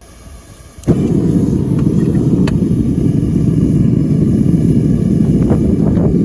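A forge firing up: a steady low rush of burner or blower noise that starts suddenly about a second in and keeps running, with a few faint clicks over it.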